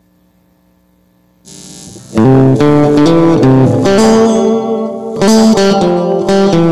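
Electric guitar played through an effects pedal: after a faint hum and a short hiss, a loud single-note melody comes in about two seconds in, with notes stepping up and down in pitch.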